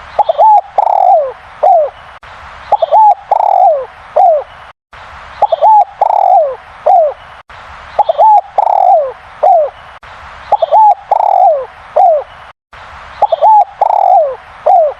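A derkuku (spotted dove) cooing loudly. The same short phrase, a quick double note followed by longer falling coos, repeats about six times.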